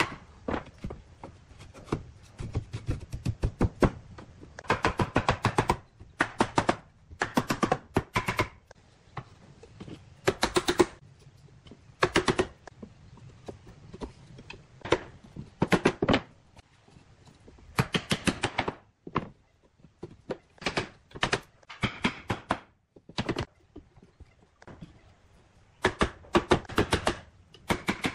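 Wooden mallet knocking wooden slats into their joints on a lattice frame: bursts of quick, sharp wood-on-wood knocks with short pauses between them.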